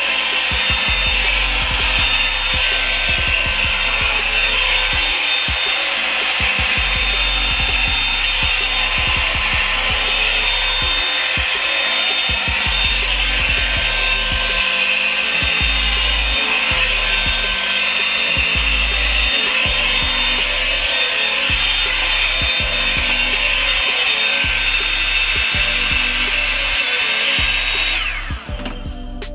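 Revlon hair dryer brush running steadily, a high motor whine over rushing air, switched off near the end so the whine falls away. Background music with a bass beat plays underneath.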